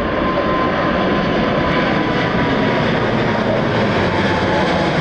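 A jet airliner's engines at takeoff thrust: a loud, steady noise with a faint whine that slowly drops in pitch and fades.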